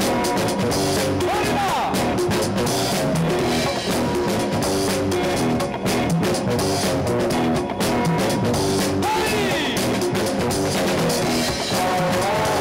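Loud music with drums and a steady beat.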